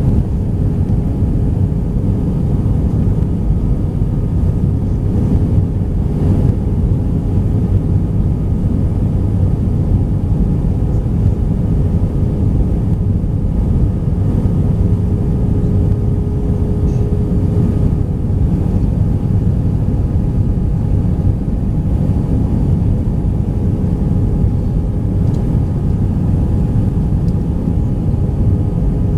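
Steady cabin noise of an Airbus A319-131 on approach with flaps extended: a constant low rumble of its IAE V2500 engines and airflow, heard from inside the cabin, with a thin steady hum over it.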